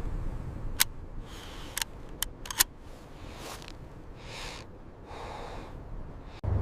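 Steady low wind rumble of a blizzard, with several sharp cracks in the first few seconds and two short hissing swells.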